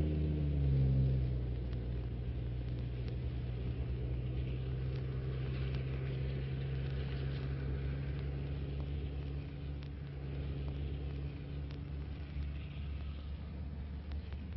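Diesel engine of a Mercedes-Benz coach bus running as it pulls away: a steady low drone whose tone drops slightly about a second in, then slowly fades as the bus moves off.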